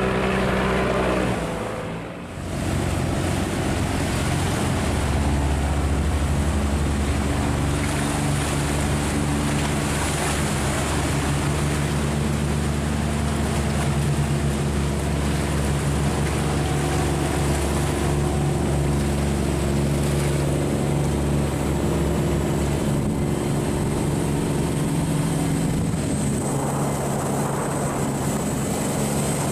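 Boat diesel engine running steadily at low revs, with water churning. The sound dips briefly about two seconds in, then the engine runs on with a steady low hum.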